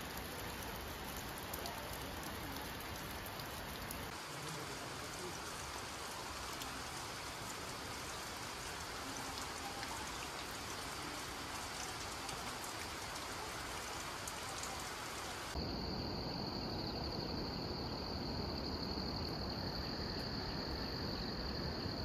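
Steady hiss of rain. About three-quarters of the way through it cuts to insects droning in one steady high tone over a low rushing background.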